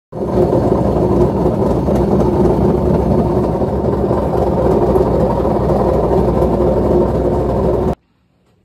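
LG CV5011 washer-dryer drum spinning, a loud steady rumble that starts abruptly and cuts off suddenly near the end. The noise comes from worn drum bearings, and the shaft very likely needs replacing too.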